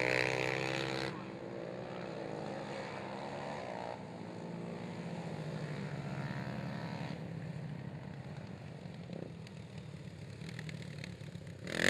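Racing ATV (quad) engines revving hard around a dirt oval, the engine note rising and falling as the riders work the throttle through the turns. Loudest in the first second as the quads pass close, then fainter and steadier, with a brief loud burst just before the end.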